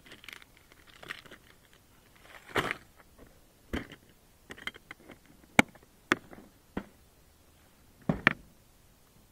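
Gear being handled in an aluminum fishing boat: crinkling of a plastic lure package and a plastic tackle box being folded shut, with a scattering of sharp knocks and clicks. The loudest knock comes a little past the middle, and a close pair comes near the end.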